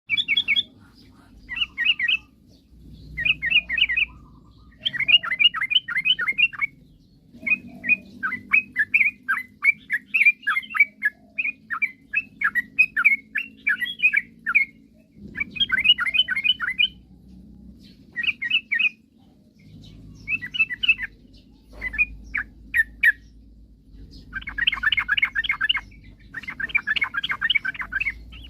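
Yellow-vented bulbul (trucukan) singing in repeated bursts of rapid, chattering notes, each phrase lasting one to two seconds with short pauses between. The fullest, loudest phrases come near the end.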